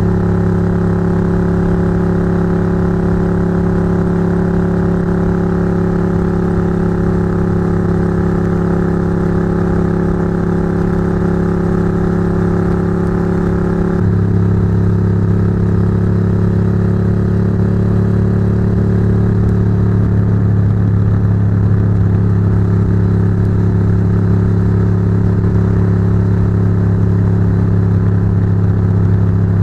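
Ducati GT1000's air-cooled V-twin with a Termignoni exhaust, running at a steady cruising speed and heard from close above the exhaust pipes. About halfway through, the engine note jumps abruptly to a slightly different steady pitch and gets a little louder.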